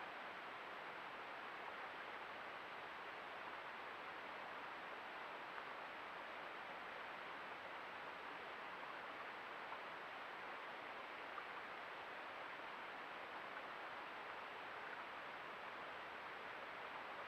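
Steady rush of a woodland stream running high after heavy rain, an even, unbroken water noise without distinct splashes.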